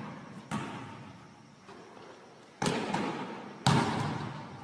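A basketball thudding on a hardwood gym floor and being handled: three loud thuds about a second apart, the last the loudest, each echoing in the big gym, with a fainter knock in between.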